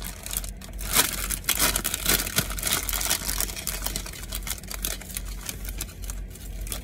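Ruffles potato chip bag crinkling and crackling in the hands as someone rummages inside it for a chip, an irregular run of sharp crackles.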